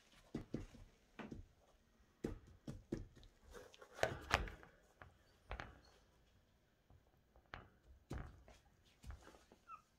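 Scattered soft knocks and rustles at irregular intervals, loudest in a cluster about four seconds in, with a brief faint squeak near the end.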